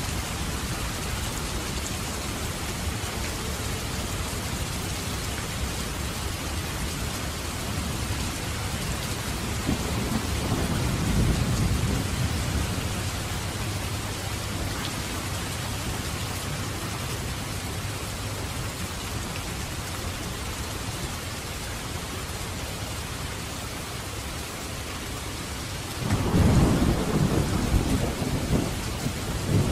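Steady rain with thunder rumbling: a low rumble swells about ten seconds in, and a louder one breaks in suddenly a few seconds before the end.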